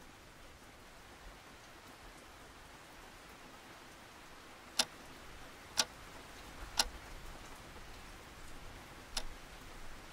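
A wind-up alarm clock ticking: four sharp, loud ticks from about halfway in, the first three a second apart, over a faint steady hiss of rain.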